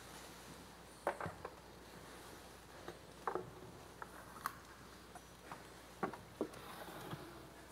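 Faint, scattered knocks, taps and clicks of people moving in a quiet church, about half a dozen short sharp sounds spread through the stretch.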